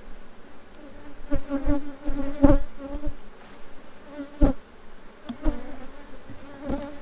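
Honeybee colony buzzing in an open hive box, a steady hum. Sharp knocks and bumps come through it every second or so, the loudest about two and a half and four and a half seconds in.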